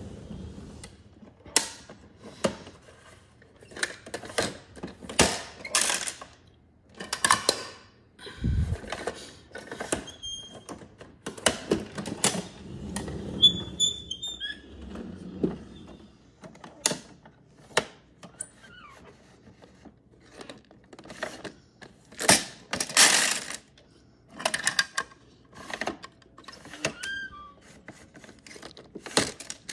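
Irregular clicks, knocks and clatter of hard plastic from a toy garbage truck and its toy wheelie bins being handled and moved on a wooden floor, with a heavier low thud about eight seconds in.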